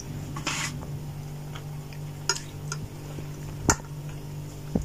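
Eating sounds: a metal spoon clicking a few times against a ceramic plate, the sharpest click near the end, over a steady low hum.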